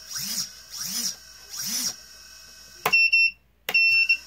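TBS 2750 kV brushless motors of an FPV quadcopter blipped three times in quick succession, each a short whine rising and falling in pitch, sounding smooth. About three seconds in comes a sharp click with a short high beep, then another click and beep a second later.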